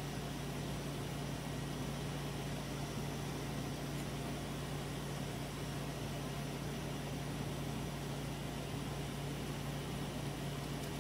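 A steady low hum over a constant hiss, with no change in level.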